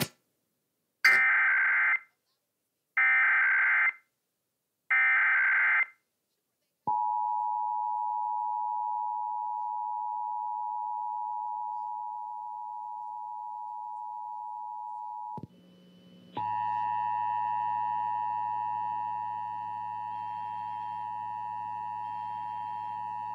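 Emergency Alert System test signal: three short bursts of SAME header data, then the steady two-tone EAS attention signal for about eight seconds. It cuts off briefly, then the attention tone starts again with a low hum and extra tones under it.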